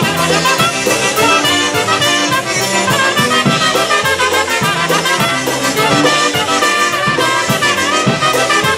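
Live polka band playing an instrumental break: trumpets and saxophone carry the melody over accordion and a drum kit keeping a steady beat.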